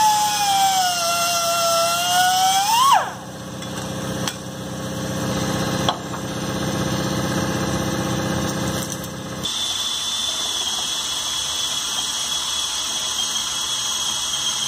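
Handheld cutoff grinder cutting metal on the mower frame, its whine dropping in pitch under load, then rising and stopping about three seconds in. A steadier, lower tool noise follows, and from about ten seconds in a cordless drill runs with a steady high whine, drilling a hole through the frame.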